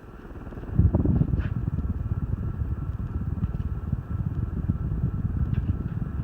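Air from a ceiling fan running on high speed buffeting the microphone: a loud, choppy low rumble of wind noise that starts suddenly about a second in.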